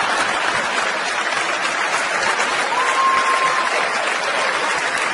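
A live stand-up comedy audience applauding steadily after a punchline, with a brief high, steady tone about three seconds in.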